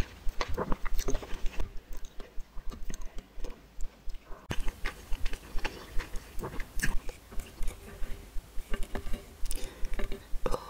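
Close-miked chewing of spicy noodles, heard as a quick run of wet clicks and smacks from the mouth.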